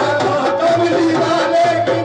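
Qawwali: a singer's voice drawing out a wavering, held line over hand-drum accompaniment and other instruments.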